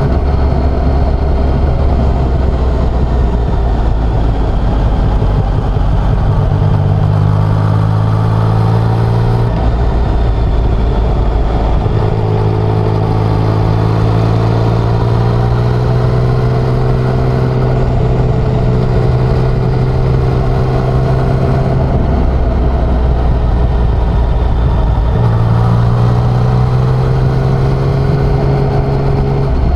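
Yamaha XSR900's three-cylinder engine running on the move, its pitch rising several times as it pulls and then settling, over rushing wind noise.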